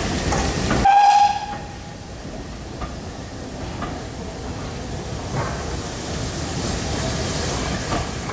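Steam-hauled train departing past close by: the rumble and steam hiss of GWR 4-6-0 "Hagley Hall" and its tender, a brief whistle about a second in, then the steadier rolling of the coaches with occasional knocks from the wheels.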